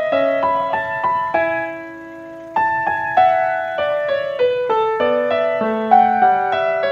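Background music: a gentle piano melody of single notes with chords, one held note about two seconds in before the playing picks up again.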